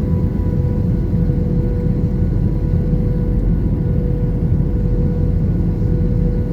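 Steady cabin noise of an Airbus A321-211, its CFM56 turbofan engines and the airflow making an even rumble with a constant hum.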